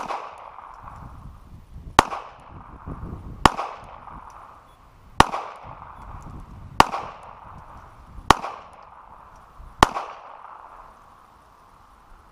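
Seven single gunshots fired at a steady pace, about one and a half seconds apart, each followed by a short ringing echo.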